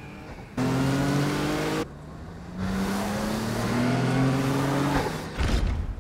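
Off-road race truck's engine revving hard as it accelerates, its pitch rising in two long pulls with a short break between them. A low thump follows near the end.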